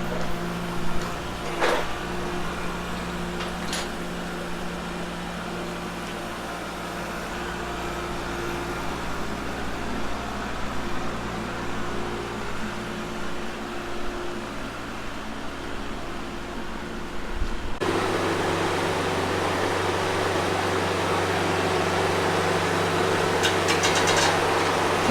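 An engine running steadily at a constant speed, with a few sharp knocks in the first few seconds. About eighteen seconds in the engine note changes abruptly, and a quick run of clicks follows near the end.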